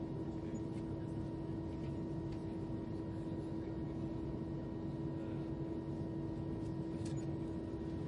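Cabin noise inside an Airbus A320 twin-engine jet airliner: a steady engine and airflow drone with a constant hum running through it, holding level throughout.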